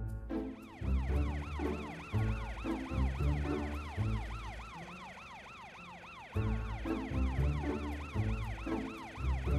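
Cartoon emergency-vehicle sirens wailing in a fast yelp, rising and falling about three times a second, over background music with a low rhythmic bass line.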